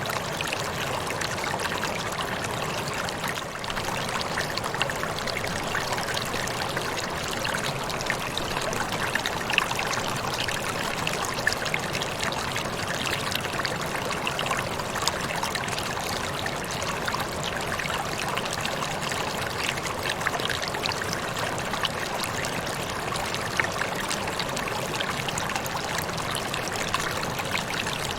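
Waterfall: a steady, even rush of falling water, with small splashes flicking through it.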